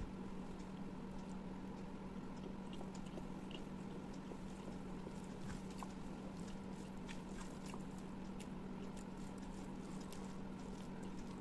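Close-miked chewing of food, with soft wet mouth clicks and smacks scattered throughout, over a steady low hum.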